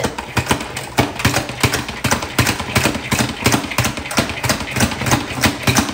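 OXO pump-action salad spinner being pumped: the plunger pressed down in rapid, even strokes, several a second, over a steady hum from the spinning basket of wet lettuce.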